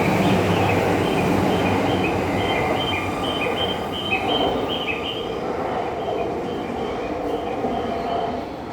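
Yamanote Line commuter train pulling out of the platform, a steady rumble that slowly fades, with a run of short high squealing tones over the first few seconds.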